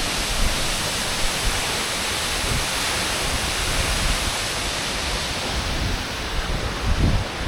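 Steady rushing of a large waterfall, a dense even hiss of falling water, with a few low rumbles swelling up near the end.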